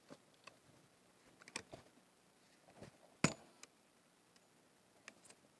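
Faint clicks and knocks from handling a 12-bore shotgun, with one sharper metallic click with a short ring about three seconds in.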